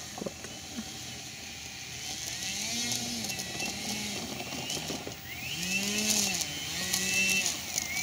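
Electric motor and propeller of a Hobbyking 3D Monster Yak 54 RC model plane, running on 6S LiPo packs, taxiing through tall grass: the motor whine rises and falls in pitch again and again as the throttle is blipped, getting louder toward the end.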